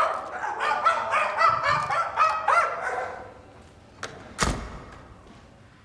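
A monkey calling excitedly: a rapid run of hoots and shrieks rising and falling in pitch, dying away after about three seconds. About four and a half seconds in comes a single loud thud, fading out slowly in the hall.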